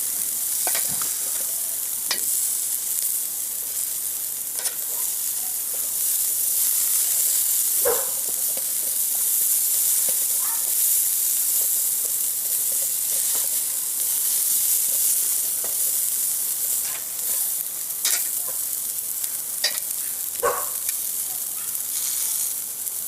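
Asparagus spears sizzling on a hot grill grate, a steady hiss, with a few sharp clicks and taps scattered through as the spears are rolled and moved around.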